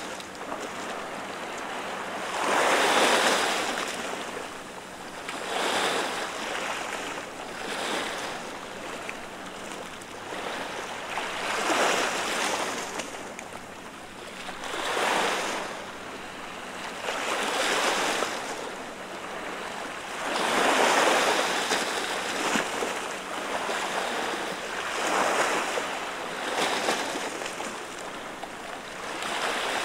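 Small sea waves washing over the rocks of a breakwater: a steady wash that swells into a surge and splash every two to four seconds.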